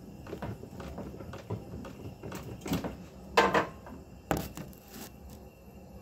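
Window air conditioner running with a steady low hum, with several knocks and rattles over it, the loudest a little over three seconds in and again just after four seconds.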